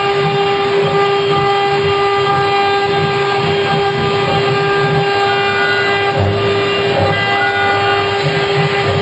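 Woodworking machine running steadily, with a constant loud whine and an uneven low rumble beneath it.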